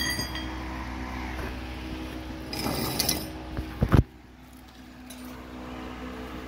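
Handling noise from the camera as it is picked up and covered: rustling, then two sharp knocks just before four seconds in, after which the sound turns muffled. A steady low hum runs underneath.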